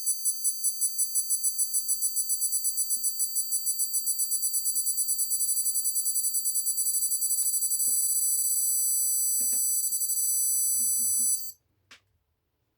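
Digital torque wrench beeping in high-pitched pulses that come faster and faster as the applied torque nears the preset value, then merge into a steady tone at the target. The tone cuts off near the end.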